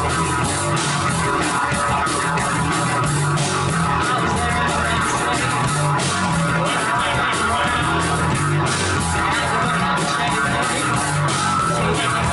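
Rock band playing live and loud: electric guitar over a drum kit, with repeated cymbal and drum hits.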